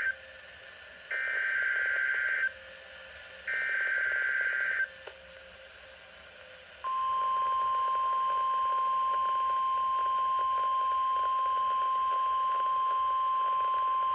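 NOAA Weather Radio SAME alert header: two harsh buzzing bursts of digital data tones, each about a second and a half long and a second apart. Then, about seven seconds in, the steady 1050 Hz warning alarm tone begins and holds. These are the tones of the routine weekly test of the SAME encoding and tone alert system.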